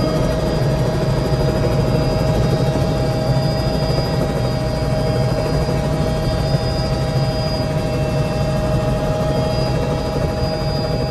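Helicopter engine and rotor running, heard from inside the cockpit: a steady, dense rumble with a steady high whine over it.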